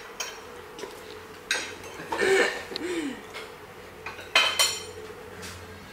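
Pots, pans and dishes knocking and clinking as a low kitchen cupboard is rummaged through: a few separate clatters, the loudest pair about four and a half seconds in, over a faint steady hum.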